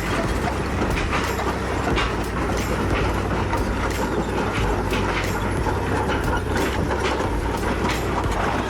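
Heavy crawler machinery moving slowly: a diesel engine running steadily under a constant clatter and clank of steel tracks, as a Komatsu bulldozer tows a crawler-mounted blast hole drill.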